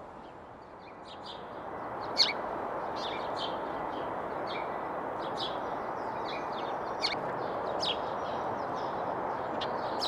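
A gang of house sparrows chirping: many short, repeated contact calls from several birds, starting about a second in, over a steady background hiss.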